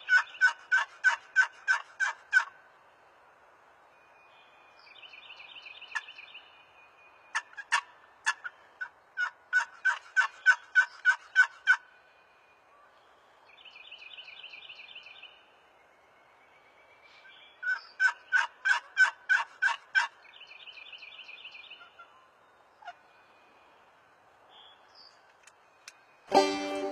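Turkey yelping: several runs of sharp, evenly spaced yelps, about five a second and two to three seconds per run, with softer raspy purring between the runs.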